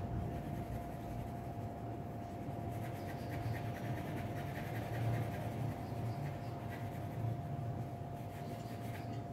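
Graphite pencil scratching on paper in quick, short shading strokes, starting about three seconds in, over a steady low background hum.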